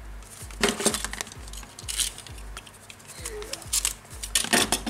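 White paper wrapping on a package rustling and crinkling as it is handled, with a louder burst about a second in and another near the end as a utility knife slits the paper. Background music with a steady low beat plays throughout.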